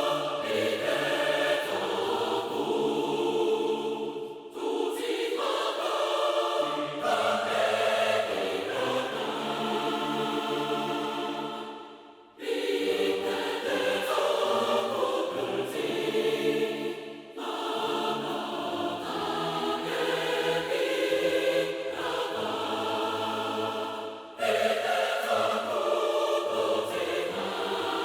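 Mixed choir singing sustained phrases in D minor with a string section, from an epic orchestral-choral piece. The music breaks off briefly between phrases a few times.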